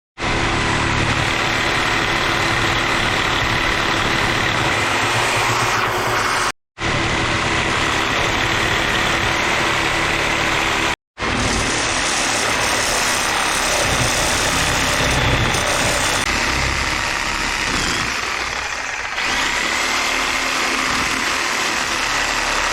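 Power tool cutting into the side of a transformer, a loud steady whine that stops abruptly twice and starts again.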